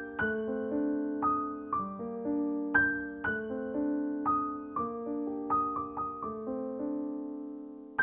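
Background music: a slow, gentle solo piano tune, single notes and chords struck and left to fade.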